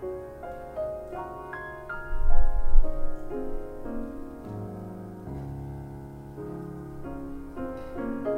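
Background music of slow piano notes played one after another. A short deep rumble about two seconds in is the loudest moment.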